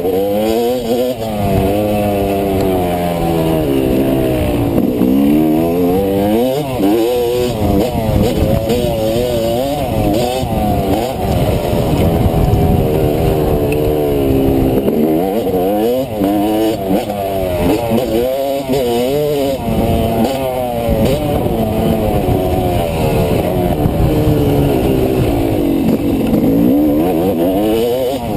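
Dirt bike engine heard from on board while riding a motocross track, its revs climbing and dropping over and over with the throttle.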